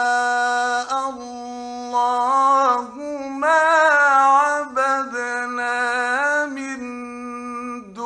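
A man's voice chanting Quran recitation in a slow, melodic tajweed style. He holds long drawn-out notes and bends them through ornamented turns, with brief breaks between phrases and a short pause near the end.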